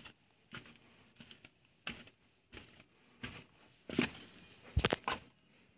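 Footsteps crunching on dry leaves and debris, about one step every two-thirds of a second, the loudest steps near the end.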